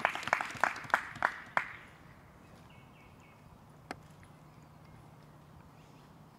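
Running footsteps on a forest dirt path, about three strides a second with a rushing noise, stopping before two seconds in. Then a quiet outdoor background with a single light knock near four seconds in.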